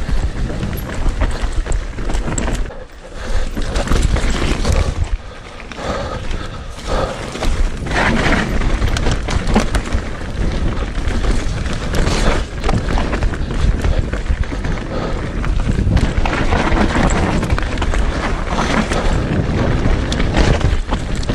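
Electric mountain bike descending a rough dirt forest trail: a constant low wind rumble on the camera microphone, tyre noise, and the bike rattling and knocking over roots and bumps.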